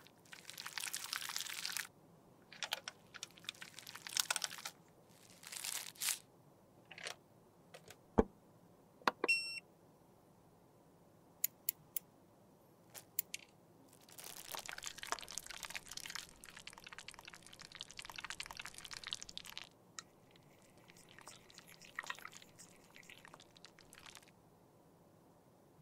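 Plastic piping bag of melted red lipstick crinkling as it is handled and squeezed, in several bursts, one long stretch in the second half. Sharp clicks come in between, and a short squeak about nine seconds in.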